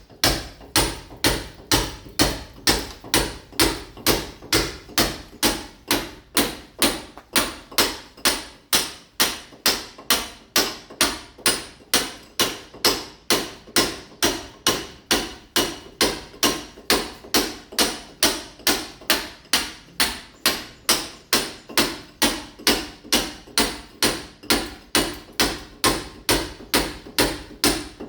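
Hammer blows chipping a masonry wall to roughen it before laying ceramic tile, struck in a steady rhythm of about two blows a second.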